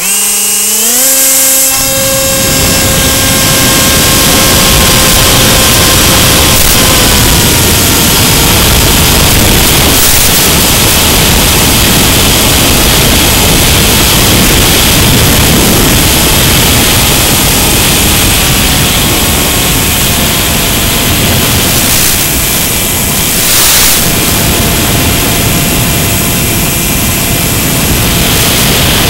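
Electric motor and propeller of a Mini Skywalker FPV foam plane spinning up, with a whine rising in pitch over the first second or so, then a loud steady rush of propeller and wind noise as the plane flies.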